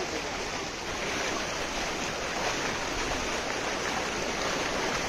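Many people wading through knee-deep floodwater: a steady splashing and sloshing of legs moving through the water.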